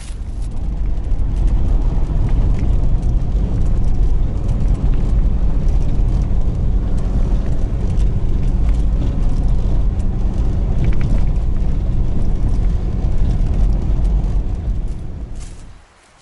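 Car driving along a rough dirt field track, heard from inside the cabin: a loud, steady low rumble of engine and tyres that fades out near the end.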